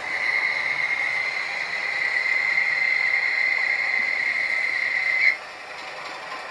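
A model locomotive's sound unit sounding one long, steady, high whistle note that cuts off suddenly about five seconds in.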